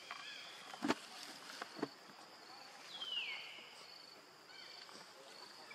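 Forest background with an insect chirping in short high pulses about twice a second. Two sharp clicks come about a second apart near the start, and a short falling whistle-like call is heard about three seconds in.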